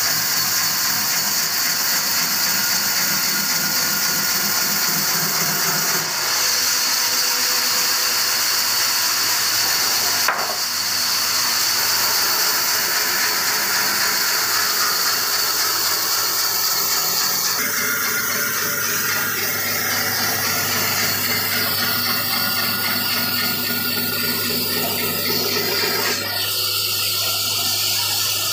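Large band saw running and ripping mahogany planks: a steady hiss of the blade through the wood over the machine's hum, changing in tone several times.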